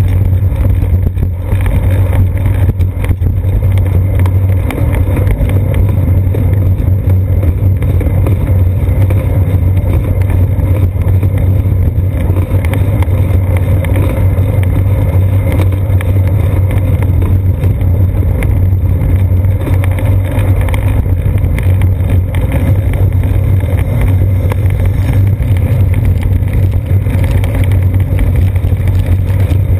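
Steady low rumble of wind and ride vibration picked up by a seat-post-mounted GoPro Hero 2 as the bicycle rolls along a paved path.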